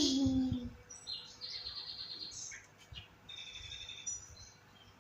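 Yellow-vented bulbul calling: a string of short, high chirps and brief whistled notes with pauses between them.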